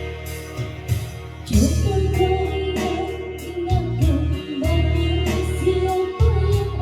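A woman singing over a backing track of bass, guitar and drums; her voice comes in about a second and a half in.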